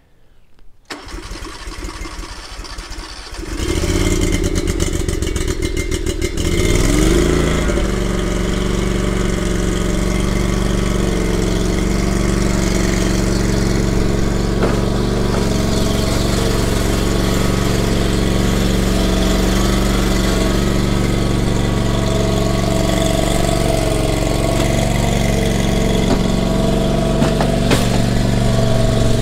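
48-inch commercial mower's engine being started: a few seconds of cranking, then it catches about seven seconds in and rises in pitch. It then runs steadily at speed while the mower is driven up ramps into a pickup bed.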